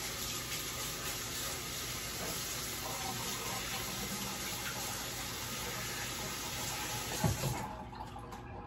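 Kitchen sink faucet running while hands are rinsed under it: a steady rush of water that stops about seven and a half seconds in, just after a brief knock.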